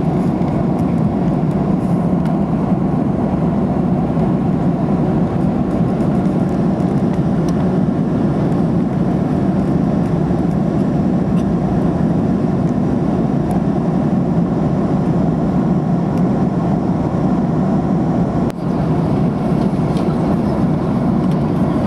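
Steady rumbling cabin noise inside an Airbus A330-200 airliner in flight: engine and airflow noise heard from an economy seat.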